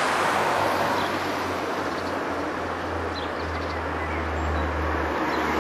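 Street vehicle noise: a steady rumble with a low hum that grows stronger a little past the middle.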